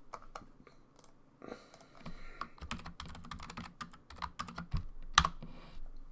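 Typing on a computer keyboard: an irregular run of key clicks, with one sharper, louder click about five seconds in.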